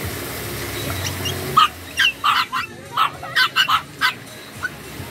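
Small puppies yapping: about ten short, high-pitched yaps come in quick, irregular succession, starting about a second and a half in. Before them, a steady rush of fountain water.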